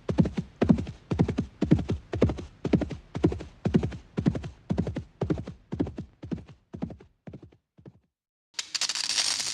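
A steady rhythm of clopping steps, about two a second, fading out over about eight seconds. Near the end, after a moment of silence, a loud hiss starts abruptly.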